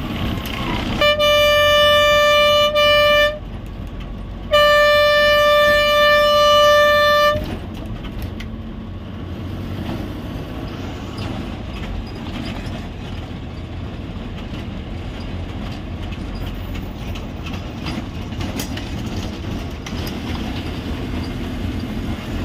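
A bus horn sounds two long, steady blasts, the first about a second in and lasting about two seconds, the second following after a short gap and lasting about three seconds. After that the bus's engine and road noise run on steadily, heard from inside the moving bus.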